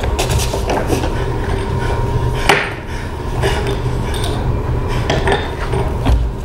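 Irregular wooden knocks and clatters from an actor and props on a wooden stage floor, over a steady low rumble.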